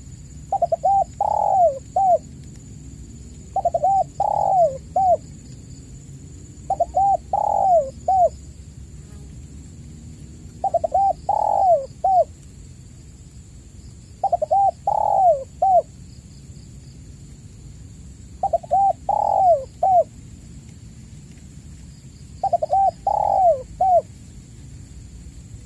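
Spotted dove cooing: seven multi-note coo phrases, each about a second and a half long, repeated every three to four seconds.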